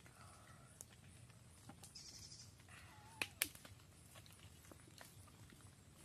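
Near silence with a faint low background, a few faint chirps, and two sharp clicks a little over three seconds in.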